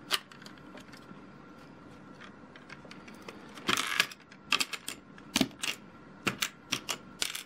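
Plastic Lego bricks clicking and clattering as pieces are picked up and pressed onto a model, a quiet stretch first and then a run of sharp, irregular clicks from about three and a half seconds in.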